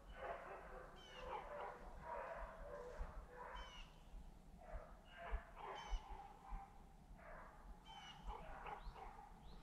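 A pack of beagles baying, many short overlapping howls and yelps without a break: hounds giving tongue as they run a rabbit's scent trail.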